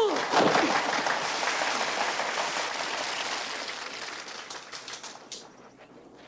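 A martial artist's sharp, high-pitched fighting yell (kiai) ends just after the start, then a crowd of watching students cheers and claps, fading away over about four seconds.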